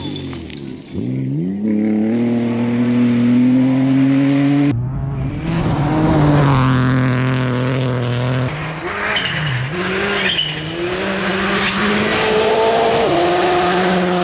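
Rally car engines at full throttle: revs climbing steadily, then an abrupt cut about five seconds in to another car accelerating hard and shifting up several times.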